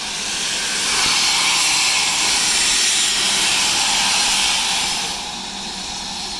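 Loud steam hiss from BR Standard Class 4 tank locomotive 80151, blowing from its open cylinder drain cocks as it moves slowly off. The hiss swells about a second in and drops to a quieter hiss about five seconds in.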